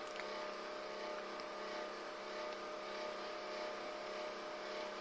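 Steady hum made of several fixed tones over a background hiss.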